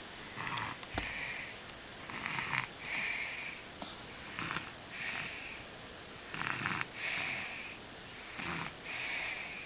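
A sleeping baby snoring: five breaths about two seconds apart, each a short rough rasp followed by a hiss.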